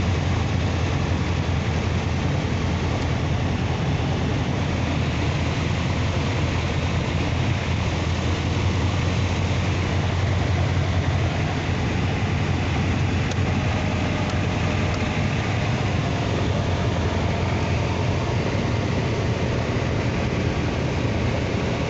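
Light aircraft's piston engine and propeller running steadily in flight, a low, even drone with a rush of air, heard from the cockpit. The cold engine has just been restarted in the air at about 30 degrees and is running smoothly.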